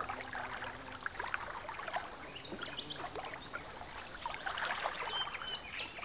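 Soft lapping and trickling of shallow water among reeds, with many small scattered clicks and ticks.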